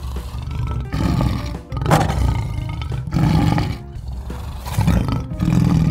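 A dinosaur roaring in a string of loud, rough roars about a second apart, over light background music.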